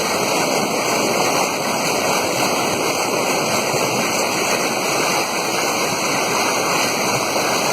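Steady rush of falling water from a natural waterfall, with no breaks or changes.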